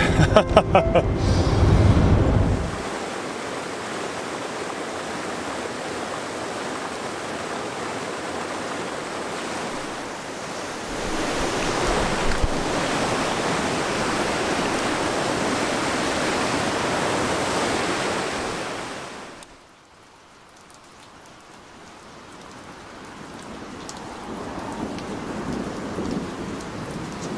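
Wind rumbling around an open-top car for the first couple of seconds, then the steady rush of a fast-flowing snowmelt mountain creek, loudest in the middle. It cuts off sharply about twenty seconds in to a much fainter hiss that slowly builds.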